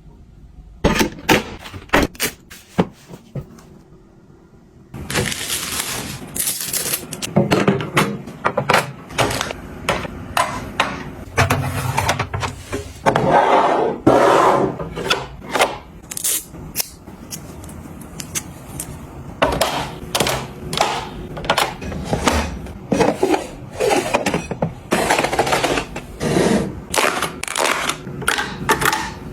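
Objects being handled and set down by hand: a long run of sharp clicks, taps and knocks with rustling and scraping between them, sparse for the first few seconds, then close together.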